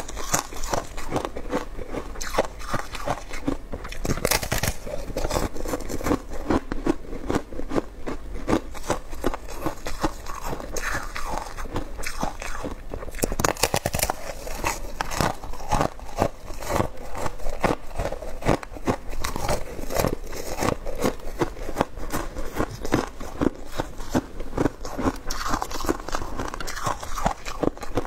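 A person biting and chewing a block of frozen flavoured ice, with dense, irregular crunching and crackling that goes on without a break.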